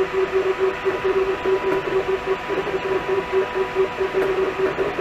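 APSX-PIM desktop plastic injection machine running in its injection-holding stage, pressing molten polypropylene into a 3D printed mold: a steady motor hum that pulses about five times a second.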